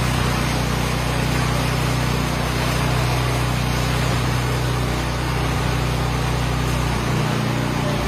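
Engine of a motorized concrete buggy running steadily at a constant speed.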